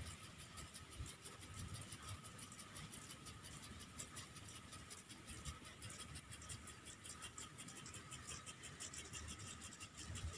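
Pitch sprinklers spraying water over the grass: a faint hiss with a fast, even ticking, over an uneven low rumble.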